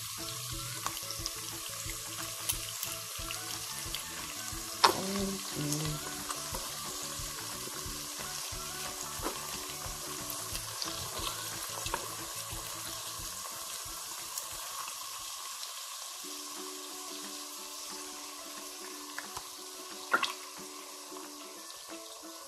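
Chicken lardons and garlic sizzling in oil in a pot while liquid cream is poured in. There is a sharp tap about five seconds in and another a couple of seconds before the end.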